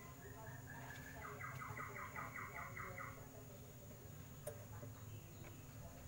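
Faint rapid chirping, about five short chirps a second, stopping about three seconds in, over quiet room tone; a single soft click follows about a second later.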